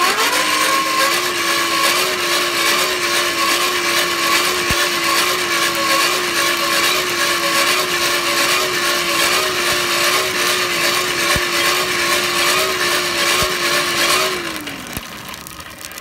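Hand-cranked Buffalo Forge blower whirring at speed, a steady whine over rushing air that wavers slightly in pitch in an even rhythm, forcing air up through the charcoal. About fourteen seconds in the whine drops in pitch and fades as the fan winds down.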